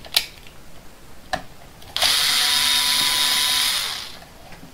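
Small cordless screwdriver running for about two seconds, backing a screw out of the plastic housing of a Milwaukee M18 battery pack, with two short clicks before it. The motor noise fades out near the end.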